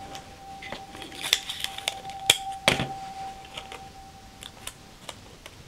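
Hands pressing tape down over a strip of black paper tucked into a book's folded pages: soft paper rustles with a few sharp clicks and taps, the loudest about two and a half seconds in.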